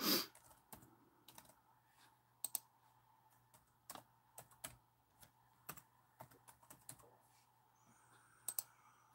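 Light, irregular keystrokes on a laptop keyboard, a word typed a key at a time, about a dozen separate taps over a faint steady low hum.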